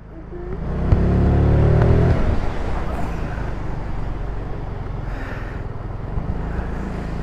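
Ice Bear Hawkeye 150cc scooter's GY6 single-cylinder four-stroke engine revving up under acceleration, rising in pitch and loudness for about two seconds, then easing back to a steady cruise.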